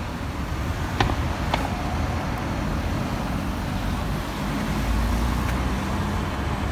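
Road traffic at a crash scene: a steady low rumble of car and truck engines, with two short clicks about a second in.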